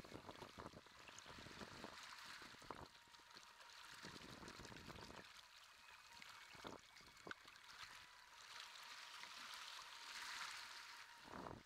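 Faint rushing and splashing of sea water along and behind a Mirror sailing dinghy moving through choppy waves, broken by a few brief low surges.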